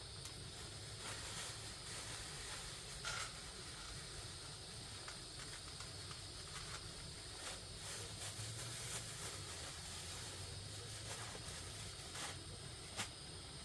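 Steady, faint hissing noise, with a few sharp clicks about three seconds in and twice near the end.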